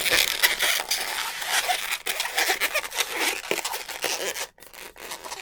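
Latex modelling balloons being twisted and handled: rubbery squeaks and rubbing with quick crackles, going quieter about four seconds in.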